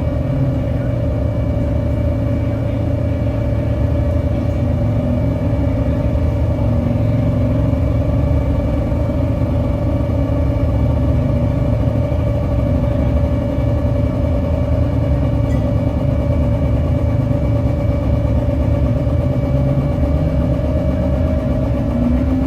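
Live noise music: a dense, steady low rumble with a held mid-pitched drone tone over it. A short rising glide appears near the end.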